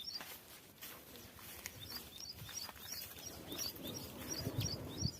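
A bird calling, repeating a short high chirp about twice a second, the calls coming thick from about two seconds in. A low rustle rises near the end.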